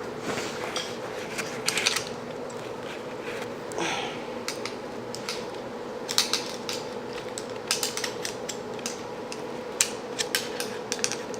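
Scattered metallic clicks and clatter of hand tools at work on a fuel pump assembly, coming thicker in the second half, over a steady low hum.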